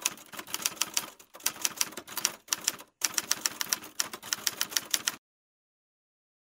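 Typewriter keys clacking rapidly, about five strikes a second, in three runs with brief pauses between them, stopping suddenly about five seconds in.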